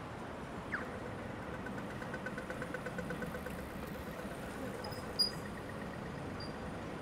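Street traffic running steadily, with an Australian pedestrian crossing signal: a short falling electronic zap about a second in, then rapid even ticking for a few seconds, the walk signal. A brief sharp high chirp about five seconds in.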